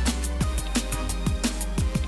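Background electronic music with a steady beat: kick drums that drop in pitch, crisp hi-hat ticks, and a sustained bass underneath.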